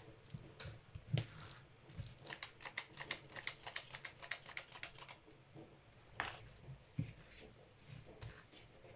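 Hand-held flour sifter clicking in a fast run of about six or seven clicks a second as flour is shaken out over dough, followed by a couple of soft knocks as the dough is handled on the mat.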